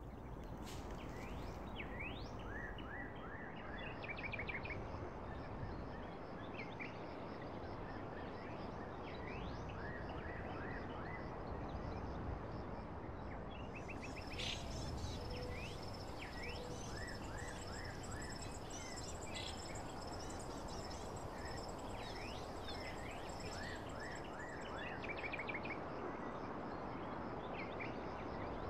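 Birds chirping in short, quick calls over a steady background hiss. A thin high steady tone joins in for about ten seconds midway.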